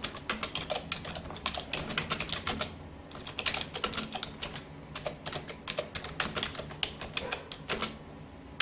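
Typing sound effect: rapid, uneven keyboard key clicks with a brief pause about three seconds in, over a faint low steady hum.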